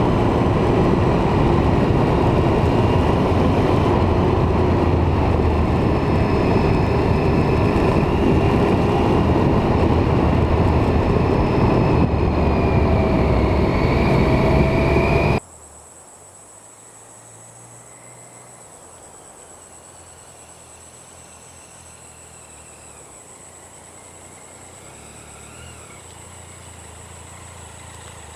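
A loud, steady rushing noise that cuts off suddenly about fifteen seconds in. A much quieter steady high-pitched whine follows.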